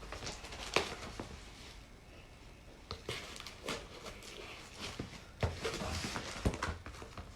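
Parcel packaging being handled and opened by hand: irregular rustling and crinkling with scattered light clicks and knocks.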